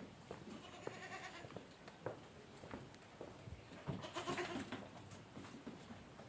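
Goats bleating: a call about a second in and a louder one about four seconds in, with a few faint knocks between.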